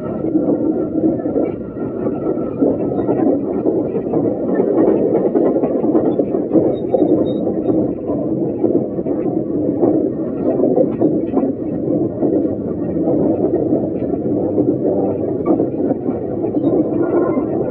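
Steady running noise of a diesel railcar, a dense low rumble that varies a little in loudness, heard muffled and narrow through a flip phone's microphone.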